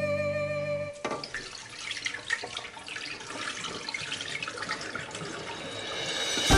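Cloudy rinse water poured off washed rice from a tilted rice cooker pot, splashing and trickling into a sink drain, growing louder toward the end. Background music fades out about a second in.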